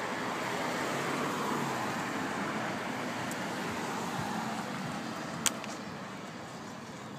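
Road traffic: a car driving by on the street, its tyre and engine noise building and then slowly fading, with one sharp click about five and a half seconds in.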